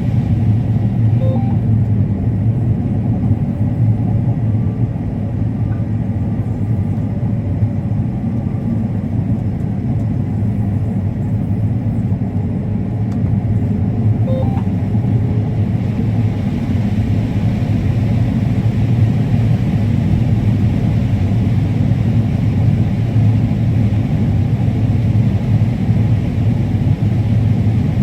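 Combine harvester running steadily while harvesting corn: a constant low drone.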